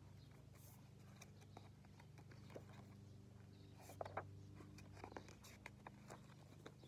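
Near silence over a faint steady low hum, with a few soft clicks and rustles of a picture book's cover and pages being opened and turned about four to five seconds in.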